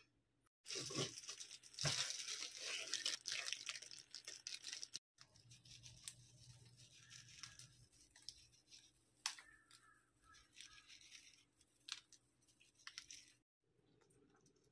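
Dry nori seaweed being torn and crumbled by hand: crisp crackling and rustling for the first few seconds, then softer scattered rustles and a few light clicks.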